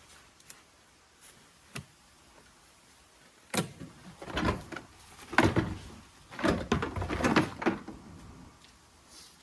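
Car body and trim parts being handled: a sharp click about two seconds in, then about four seconds of irregular knocking, scraping and rattling.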